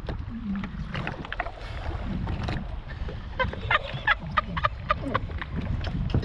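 Wind rumbling on the microphone over choppy open water, with a man laughing loudly in a string of short bursts about halfway through.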